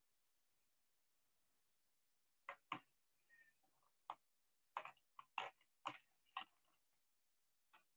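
Near silence for about two and a half seconds, then a run of about ten irregular, sharp clicks and taps.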